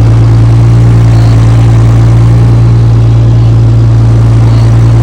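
An engine running steadily at a constant speed, very loud and close, with a deep even hum.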